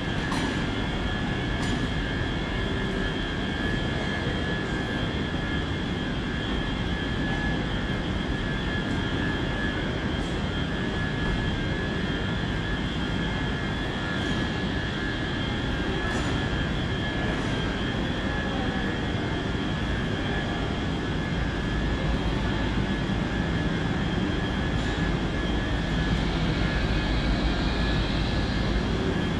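Steady drone of a large train shed with a standing Lumo Class 803 electric train humming and whining at the platform, a steady high whine running through it. The low rumble swells near the end as the train comes close.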